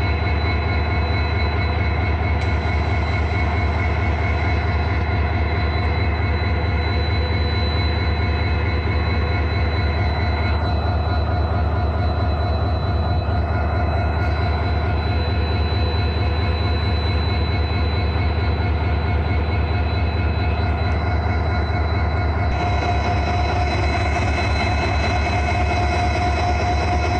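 Diesel locomotive engine idling steadily with a deep, even hum and constant overtones.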